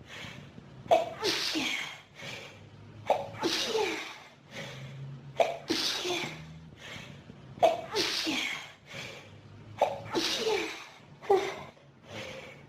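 A person with pollen and dust allergies sneezing over and over in a fit, about six loud sneezes roughly two seconds apart. Each sneeze comes on suddenly, ends in a voiced 'choo' that falls in pitch, and is preceded by a quick sharp intake of breath.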